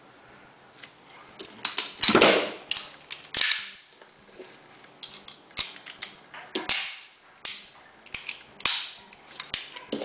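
Sharp metallic clicks and clacks of a Rock Island Armory 1911 .45 pistol being worked by hand: the slide racked and the hammer dropping in dry fire on a snap cap. Several of them, the loudest about two seconds in.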